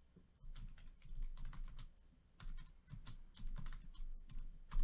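Light, irregular clicks and taps in quick succession, about a dozen, with the loudest near the end.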